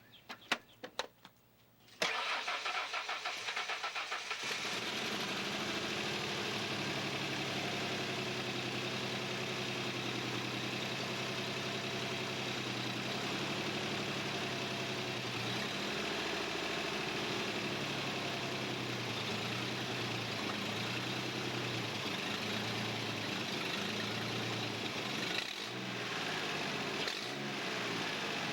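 A few clicks, then the 1997 Ford F-150's 4.2 L V6 cranks on the starter for about two seconds, catches and settles into a steady idle, running on newly replaced fuel injectors.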